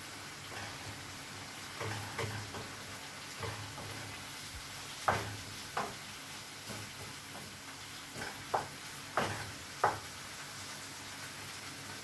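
Prawns frying in a pan with onion, garlic and tomato, a steady faint sizzle, with a cooking utensil knocking and scraping against the pan several times as they are stirred.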